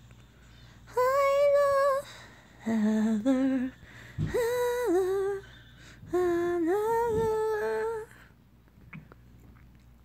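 A voice humming a tune wordlessly in four short phrases of held, sliding notes, with short pauses between them.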